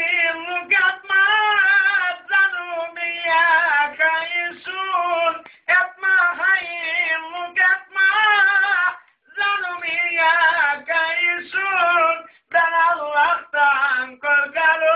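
A single high voice singing an atma türkü, a Black Sea folk song, unaccompanied, in long wavering, ornamented phrases broken by short breaths.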